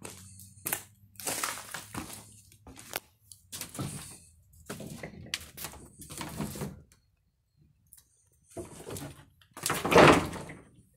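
Footsteps and shuffling over rubble and loose wooden boards: irregular crunches, knocks and scrapes, with a louder burst of crunching near the end.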